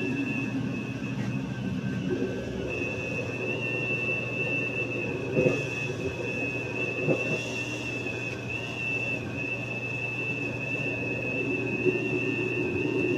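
Blender motor running steadily at full speed, chopping corn stalks and leaves in water, with a constant high whine and a few short knocks from the chunks in the jar.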